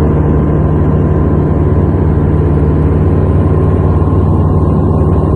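Engine of a small training airplane running steadily: a loud, even low drone with a thin steady whine above it.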